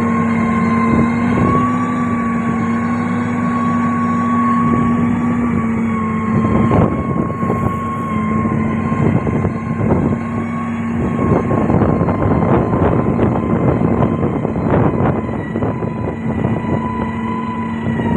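Heavy road-construction machinery running with a steady diesel engine drone. From about six seconds in, many irregular knocks and rattles join it.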